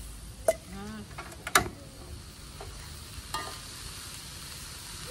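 Greens sizzling in a frying pan on a portable gas stove while a metal spatula stirs and scrapes them, with a few sharp clanks of metal on metal, the loudest about a second and a half in.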